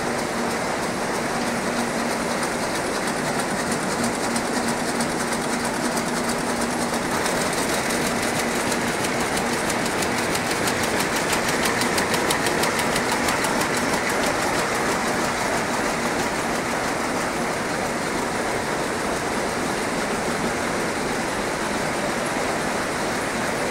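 Many towel rapier looms running together in a weaving shed: a dense, steady mechanical clatter.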